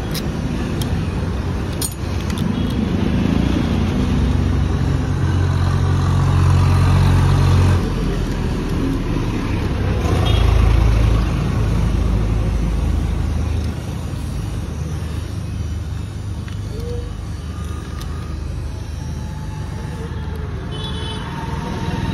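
Motor vehicle engine running with a steady low rumble that swells louder twice, from about two seconds in and again around ten seconds in.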